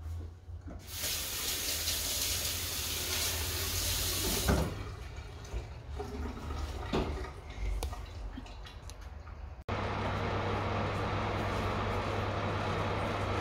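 A kitchen tap runs for about three and a half seconds, followed by a few light knocks. After a cut, a steady hum comes from a fan-forced oven, its fan running with the door open.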